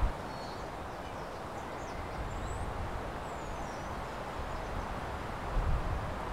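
Steady background noise with a low rumble, and a few faint, high, short bird chirps in the first half.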